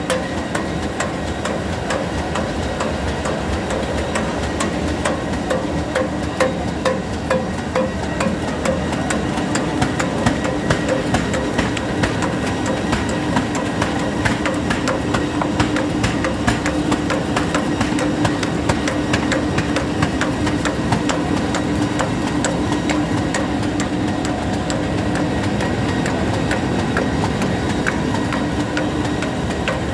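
Roll-to-sheet laminated sheet separator machine running steadily as it separates laminated prints from the roll. There is a constant mechanical hum and a regular knock about twice a second, most distinct in the first third.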